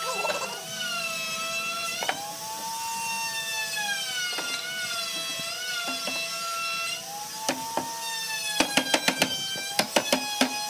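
Background music with a slow, sliding melody. A few single knocks come early on, and from about eight and a half seconds in there is a run of quick, light hammer taps on a wooden table panel, several a second.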